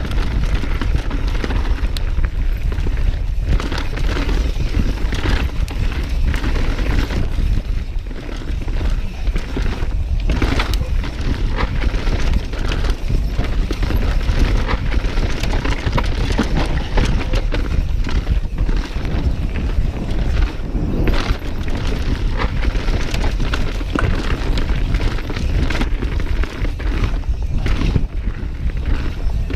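Wind buffeting the microphone of a mountain bike descending fast, with tyre noise on dirt singletrack and frequent short clatters and knocks from the bike over rocks and roots.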